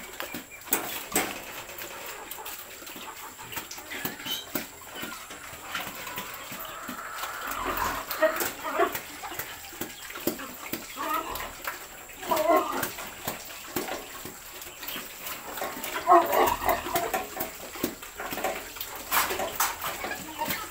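Sow in a metal farrowing crate calling in short bursts of grunts and squeals, several times in the second half, while she is given an intramuscular antibiotic injection and turns cranky. Scattered clicks and knocks come from the crate.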